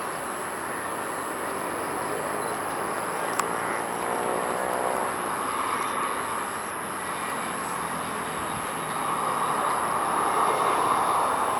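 Jet engine noise of a Scoot Airbus A320-200 at the airport, a steady rushing sound that swells louder near the end as the airliner comes closer.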